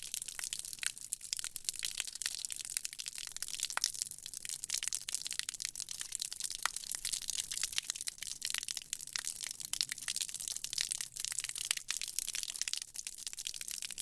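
Water sound effect: a dense, continuous crackle of countless tiny clicks and pops at an even level, with no single impact standing out.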